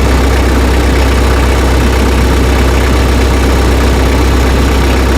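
Tractor engine running steadily with a strong low hum, while the tire chains are being settled on the tires.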